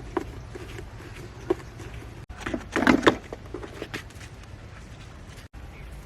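Clicks and knocks of hand-work on a children's electric ride-on car, with a busier run of louder knocks and clatter about halfway through.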